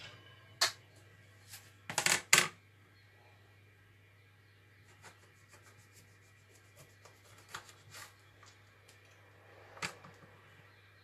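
Kitchen knife cutting a lemon on a plastic cutting board: a few sharp knocks, the loudest pair about two seconds in, then a scatter of faint light clicks. A faint steady low hum runs underneath.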